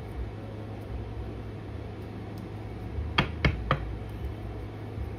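Three quick, sharp taps about three seconds in, over a steady low background hum.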